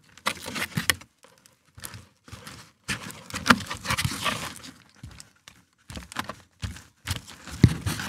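Foam packing pieces being worked loose and pulled out of a 3D printer's enclosure: foam rubbing and scraping against the frame in irregular bursts, with a few light knocks.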